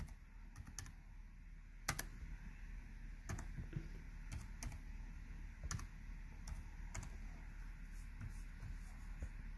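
Typing on an HP laptop keyboard: faint, irregular key clicks, with one sharper click about two seconds in.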